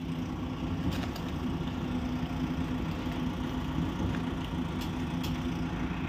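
An engine running steadily at idle, a low even hum with a few faint light clicks over it.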